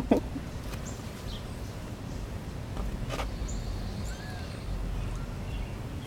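Low steady outdoor background noise, with a sharp knock right at the start and a few faint, brief high chirps.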